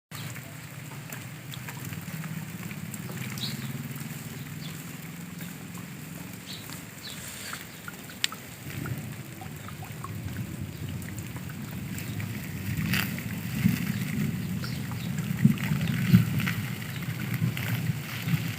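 Rainwater running and trickling after rain, under an uneven low rumble of wind on the microphone, with scattered small ticks of drips. It grows louder and gustier in the last third.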